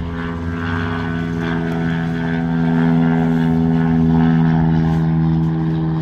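Small propeller airplane passing low overhead: a steady engine drone that builds to its loudest midway, then eases slightly.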